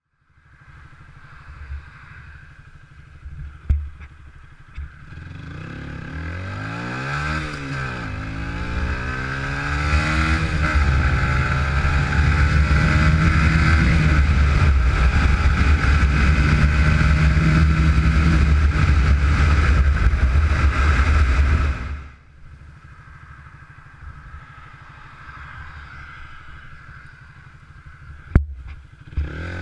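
Honda CBR125R's single-cylinder four-stroke engine with a Radical Racing full exhaust accelerating hard, revs climbing and dropping at each upshift, then held high with heavy wind rush. About two-thirds through it cuts off abruptly to a much quieter low engine note, with a sharp knock near the end and the revs rising again right at the close.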